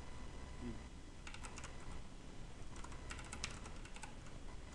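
Computer keyboard keystrokes in two quick bursts, about a second in and again around three seconds, as numbers are typed into a colour value field.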